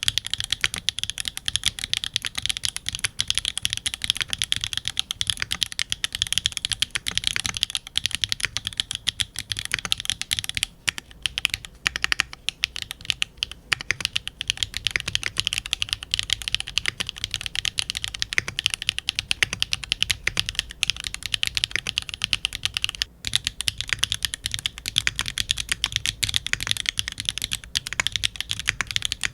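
Fast, continuous typing on a Mode Envoy mechanical keyboard with an aluminium plate and no foam, giving a crisp, clacky sound. The keys are SWK linear switches: Ghost Dragon first, then Catmint from about a third of the way in, then Jieum for the last quarter, with short breaks in the typing as the switches change.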